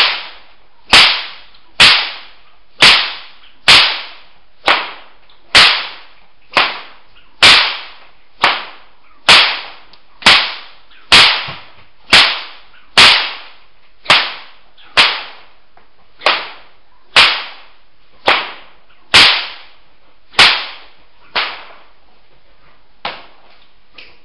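Whip cracking again and again in sidearm and underhand flicks, a sharp crack about once a second, each with a short echoing tail in the room. Near the end the cracks come further apart and weaker, then stop.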